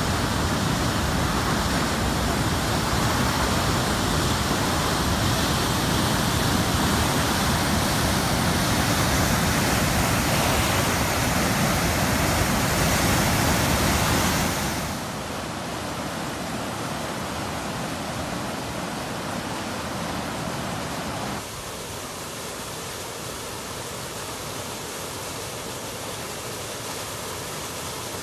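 Steady roar of rushing floodwater. It is loud for about the first half, then drops to a quieter roar at a cut and steps down once more later on.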